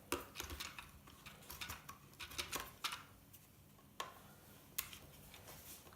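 Faint, scattered clicks and light taps of plastic parts and circuit boards being handled as a plastic gaming steering wheel is taken apart, with a sharper click about four seconds in.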